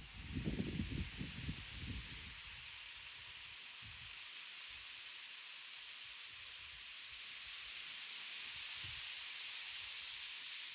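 Wind buffeting the microphone in gusty low thumps for about the first two seconds, then settling into a steady hiss of wind.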